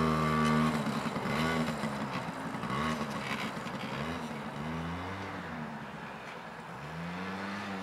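Small engine of a child's youth ATV running and being worked on the throttle, its pitch rising and falling roughly once a second, loudest right at the start.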